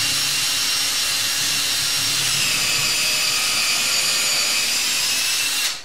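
Electric drill running with a steady high whine as it bores a pilot hole up through the ceiling into a wooden rafter for a lag bolt. Its pitch drops slightly about two seconds in, and it stops abruptly near the end.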